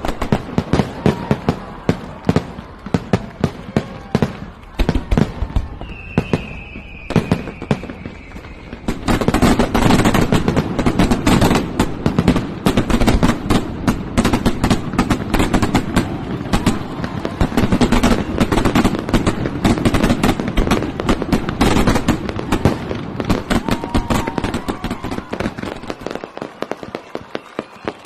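Fireworks display: rapid sharp bangs and crackling that thicken into a dense, continuous barrage about nine seconds in and thin out again after about twenty-two seconds. A high, slightly falling whistle sounds about six seconds in.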